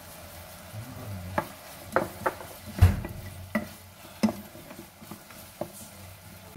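Spatula stirring sesame seeds into soy-and-sugar glazed black beans in a pot, with a few sharp, irregular knocks of the spatula against the pot over a steady low sizzle.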